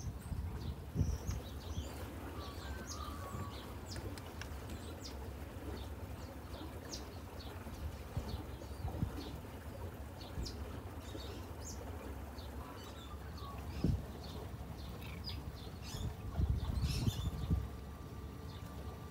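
Birds chirping in many short high calls over a low, gusty rumble of wind.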